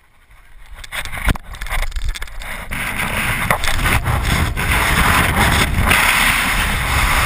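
Freefall wind rushing over a chest-mounted GoPro camera. It builds from quiet to a loud, steady rush over the first three seconds as the BASE jumper gains speed, with a sharp click about a second in.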